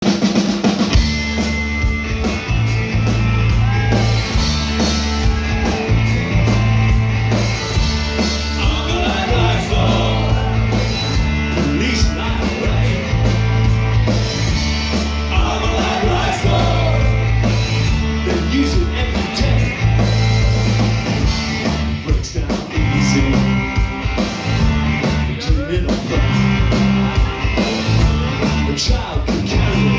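Live post-punk rock band playing, with a heavy repeating bass riff, drums and guitar, before the vocals come in.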